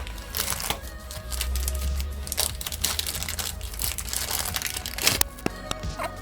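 Background music with irregular small clicks and rustles of hands handling metal hardware: washers, nuts and binding-post parts being picked up and fitted.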